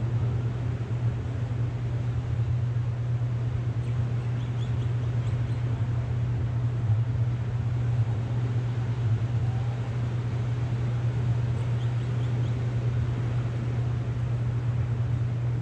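Steady low rumbling outdoor background noise, with a few faint high chirps about four seconds in and again near twelve seconds.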